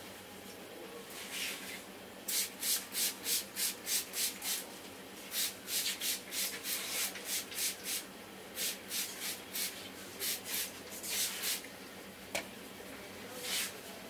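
Hands rubbing briskly over hair and scalp in a head massage: runs of quick, even rubbing strokes, about four or five a second, with short pauses between runs. A single sharp click comes near the end.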